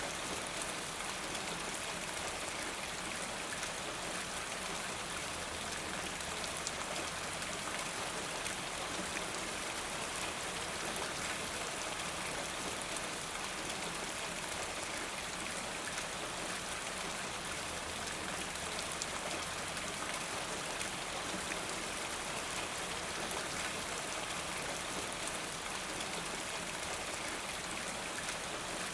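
Steady rain falling, an even hiss with fine scattered drop ticks running through it.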